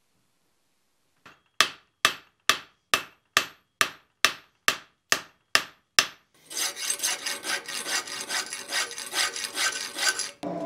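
Hand hammer blows on the hot steel of a herb-chopper blank on the anvil: about a dozen sharp ringing strikes, a little over two a second. Then fast rasping strokes of a file on the steel.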